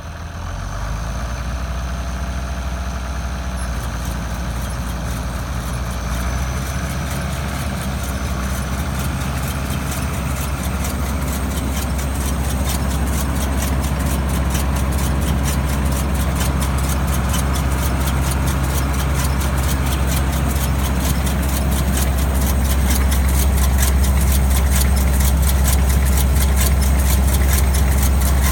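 Tractor engine idling steadily with a deep hum and a fast, evenly spaced clicking over it. The sound grows gradually louder.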